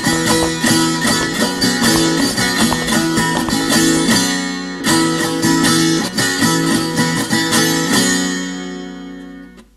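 Bolivian carnival song with strummed guitars over a steady beat. It breaks off briefly about five seconds in, picks up again, then fades out and stops near the end.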